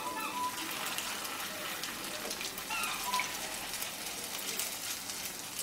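Banana-stem kofta deep-frying in hot refined oil in a kadai: a steady sizzle with many small crackles as the oil bubbles around the balls.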